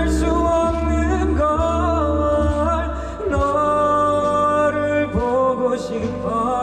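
A singer performing a calm, slow song live over sustained instrumental accompaniment, with long held notes that bend in pitch.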